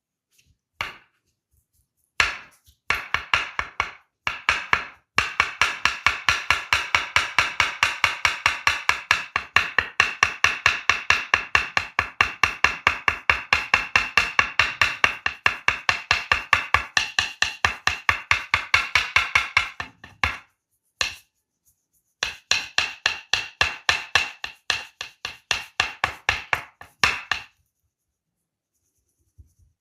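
Rapid percussion massage: a masseur's hands slapping or chopping on the body, about five sharp strokes a second, in a long run and then a second shorter run after a brief pause.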